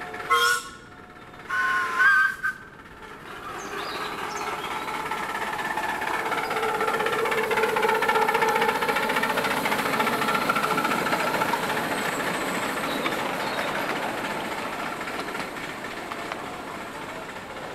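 Miniature 7¼-inch gauge steam locomotive giving two whistle blasts, a short one and then one of about a second. The train then passes: its running noise swells to loudest about eight seconds in as the engine and riding cars go by, then fades away.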